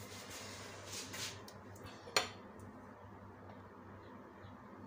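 Crockery being handled: one sharp clink of china about two seconds in, with a few faint light knocks of bowls and spoon around it.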